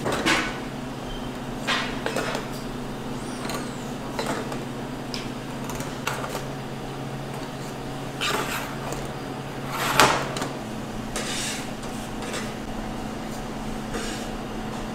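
Scattered knocks and clatter of kitchen utensils and trays over a steady appliance hum, with the sharpest knock about ten seconds in.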